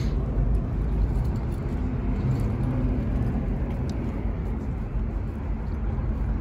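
Low, steady rumble of car engines idling.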